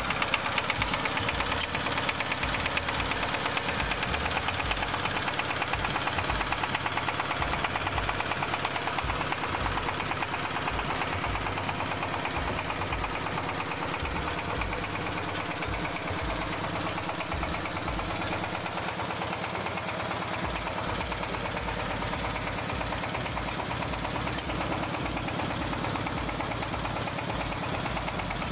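Single-cylinder diesel engine of a walk-behind power tiller running steadily, with an even, rapid chugging beat.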